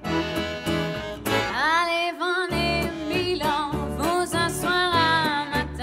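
A woman singing live with an acoustic band backing her, including a double bass; her held notes waver with vibrato.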